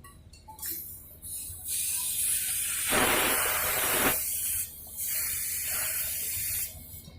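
R22 refrigerant hissing out as it is bled off at the window air conditioner's service connection, in two bursts of about three and two seconds with a brief break between. The bleed brings a slightly high back pressure down toward about 75.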